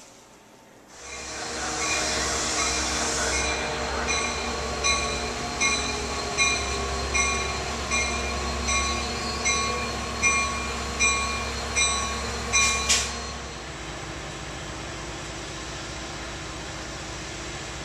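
Amtrak F59PHI diesel passenger locomotive arriving: its bell rings about a dozen evenly spaced strikes, a little more than one a second, over the steady rumble of the diesel engine, with a hiss in the first couple of seconds. The bell stops about 13 seconds in, leaving the locomotive running more quietly.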